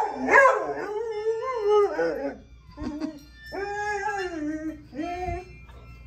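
A dog howling in drawn-out, wavering 'talking' howls. A long howl rises and falls over about two seconds, a shorter one comes about three and a half seconds in, and a brief one follows near the end.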